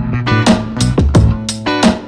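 Background music: guitar with a steady drum beat.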